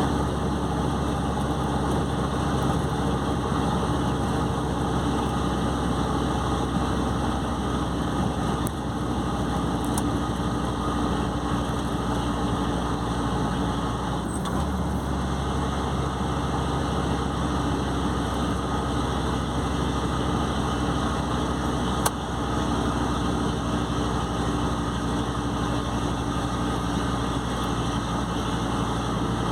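Mercedes-Benz OM 449 truck diesel engine running steadily at a low, even speed, its low note shifting slightly about halfway through. A single sharp click near the end.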